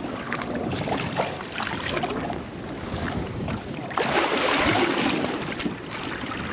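Wind on the microphone and water lapping around a small inflatable boat, with scattered light knocks. About four seconds in, a louder rush of noise lasts about a second and a half.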